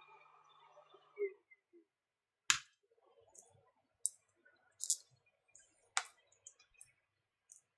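Sharp cracks and small clicks of cracked touchscreen glass being pried away from its glue on a tablet, two of them louder, about two and a half and six seconds in.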